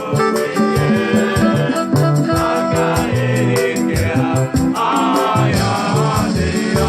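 Upbeat music with a steady beat, shaker percussion and singing.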